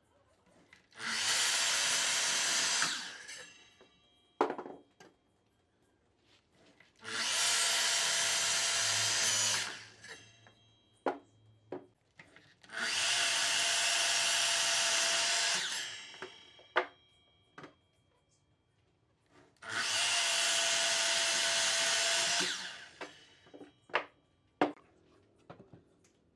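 Makita miter saw cutting through a small log four times, each cut lasting about three seconds with a steady motor whine, then the blade winding down. Short knocks of the log being handled and repositioned fall between the cuts.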